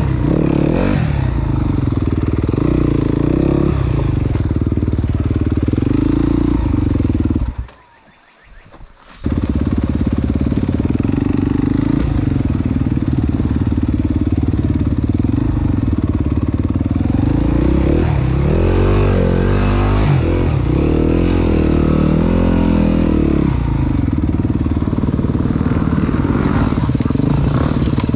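Enduro dirt bike engine running steadily at trail speed. The sound drops away abruptly for about a second and a half about eight seconds in, then comes back. In the second half the engine note rises and falls through the revs.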